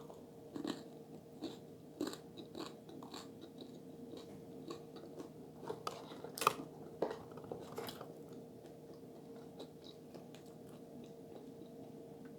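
A person chewing food close to the microphone: soft wet mouth clicks and small crunches scattered through, the loudest a little past halfway.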